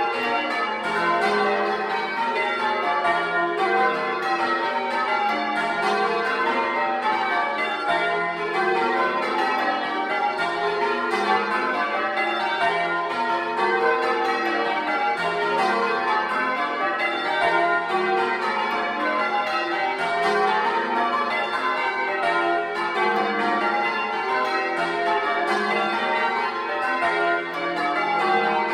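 A ring of ten church bells (tenor 17 cwt, in F) change ringing Grandsire Caters, heard from inside the belfry. The strikes follow one another in a steady, unbroken stream, each bell's ring overlapping the next.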